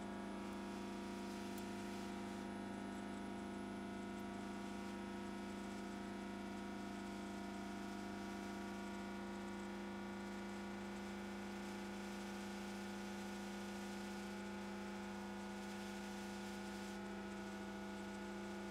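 Hot-air rework station blowing on a surface-mount chip: a steady hum made of several held tones, with a faint airy hiss over it.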